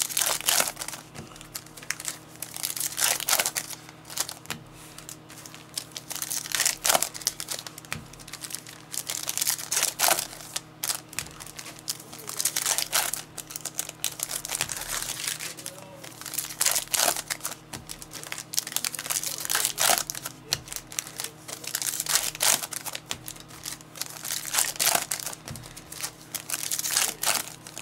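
Wrappers of trading-card packs crinkling and tearing as they are opened by hand, in repeated crackly bursts every two to three seconds.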